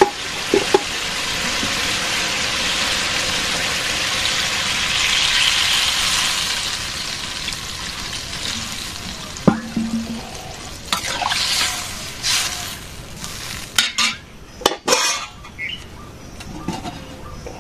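Vegetables sizzling in hot oil in a karai. About halfway through, water is poured in and the sizzle dies down, and near the end a metal lid is set on the pan with several clinks.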